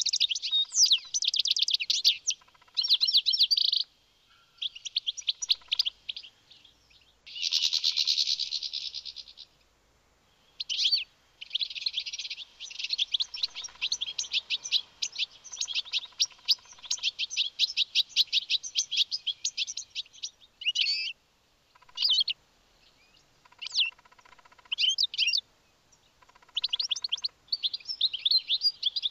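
European goldfinch singing: phrases of fast, high, tinkling twittering, repeated with short pauses between them and one long unbroken run in the middle.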